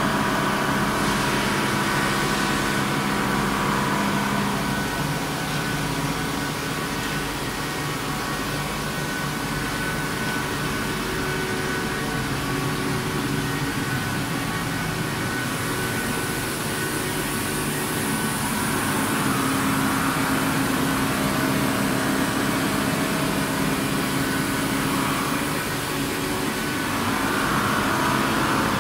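Steady hum and whir of running machine-shop equipment, with several steady tones held over a noisy background that shift a little as the listener moves around.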